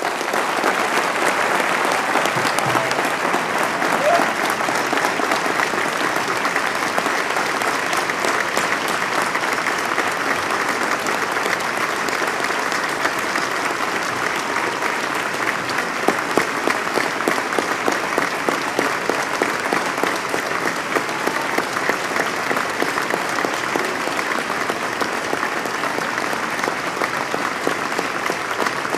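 A large audience applauding, the clapping rising quickly and then holding steady.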